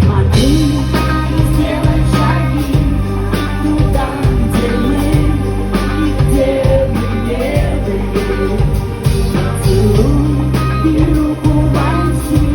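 Pop-rock song: a woman's voice singing a wavering melody over a band with steady bass and drums.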